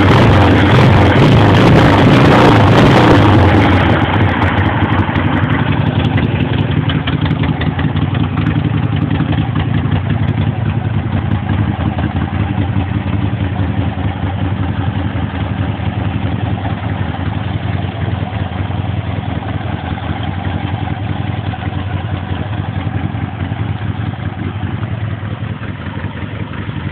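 Engine of a 1964 900cc Harley-Davidson V-twin, freshly pieced back together, idling steadily. It is loudest for the first few seconds, then runs on evenly and a little quieter.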